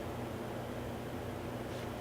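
Steady low hum with a faint even hiss, and no distinct knocks or clicks: the workshop's background tone.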